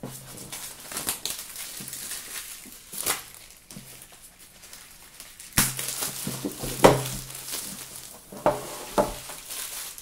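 Plastic wrapping crinkling and rustling as it is pulled off a cardboard product box, with the box being handled and several sharp knocks and taps, the loudest about seven seconds in.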